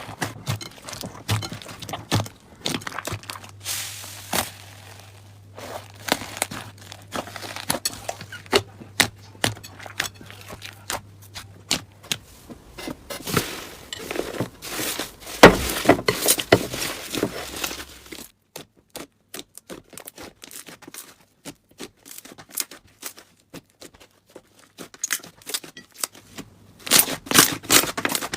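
Slime being pressed, stretched and poked by hand, giving dense, irregular crackles and pops, the loudest near the middle.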